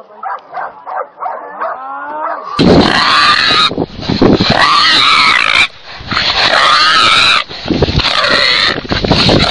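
A dog yips in quick, repeated short cries. Then, about two and a half seconds in, a wild boar seized by a hunting dog squeals loudly in a series of long, wavering screams with short breaks between them.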